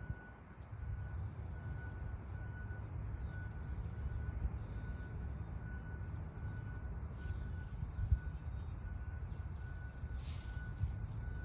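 A construction vehicle's reverse backup alarm beeps over and over at one steady pitch, faint under a continuous low rumble. Several bird calls break in now and then.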